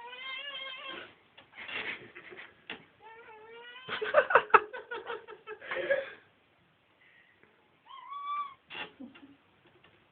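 Domestic cat making warbling meows and chirps with wavering pitch, the call a cat makes at a fly it is watching but cannot reach. Calls come at the start, again around three seconds in, and once more near the end, with a louder, rougher stretch in between.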